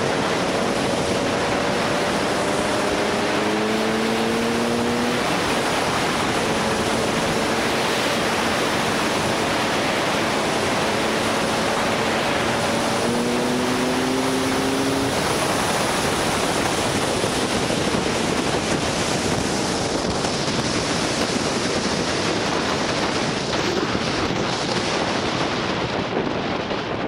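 Wind buffeting the microphone at road speed over a KTM 300 EXC TPI two-stroke enduro engine under way. The engine's pitch climbs in steps during the first half and is then buried by the wind, which eases off near the end.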